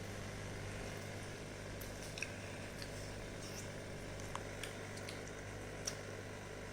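Someone quietly eating sweet yogurt (mishti doi): soft mouth sounds and a few faint, sharp clicks over a steady low hum.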